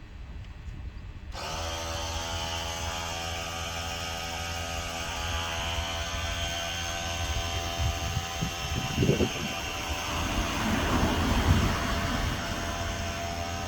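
A motor starts abruptly about a second in and runs at a steady pitch with a low hum, with louder irregular noise over it between about eight and twelve seconds.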